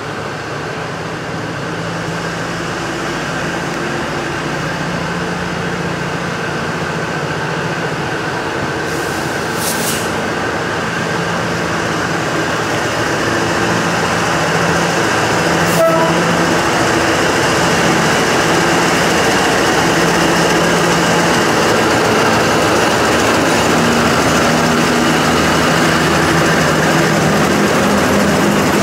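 Diesel-electric locomotive hauling a container freight train, rolling slowly closer, its engine drone and wheel rumble growing steadily louder. A short high hiss comes about ten seconds in, and a sharp click a few seconds later.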